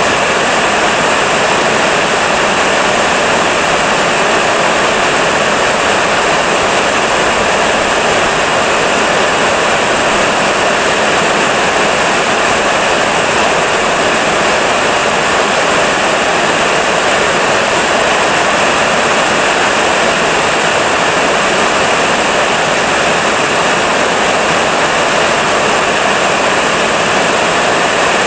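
Heavy rain falling steadily: a loud, even hiss that holds unchanged throughout.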